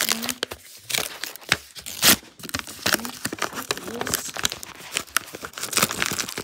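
A padded kraft-paper mailer being torn open and its bubble-wrap lining crinkling as a hand reaches inside. It makes a run of irregular rips and crackles, the loudest about two seconds in.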